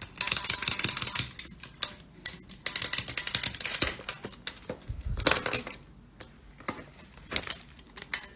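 Small green parrot scuffling with a plastic toy on a hard tabletop: rapid clicking, scraping and rattling in bursts, busiest in the first half. A brief high squeak comes about one and a half seconds in.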